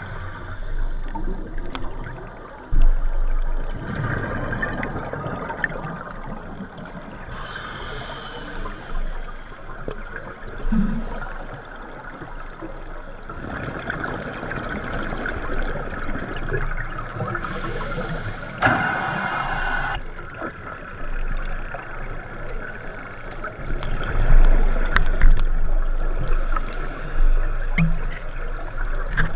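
Scuba diver breathing through a regulator underwater, heard muffled through a GoPro's waterproof housing: a rush of breath and bubbles three times, about 8 to 10 seconds apart, over a steady low rumble of water moving against the housing.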